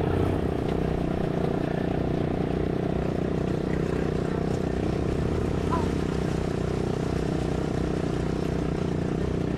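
Quad ATV engines running at a steady low speed while wading through a shallow stream, with water splashing around the wheels.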